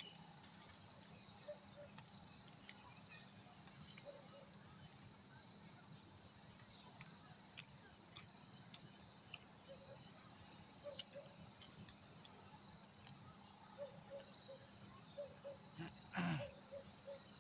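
Crickets chirping in a steady, high, pulsing trill. About 16 seconds in there is one brief, louder noise.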